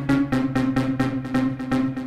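Roland JD-800 synthesizer (Roland Cloud software version) playing its 'Faith Pluck' preset: a run of bright plucked synth notes struck evenly, about six a second, beginning to ring out at the end.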